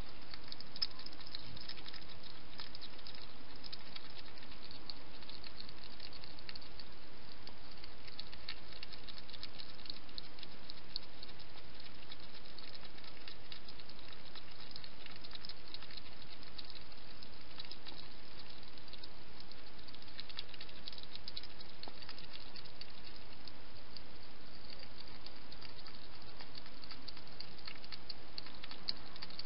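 A wild hedgehog feeding at a dish: a rapid, unbroken run of small clicks and crackles from its mouth over a steady background hiss.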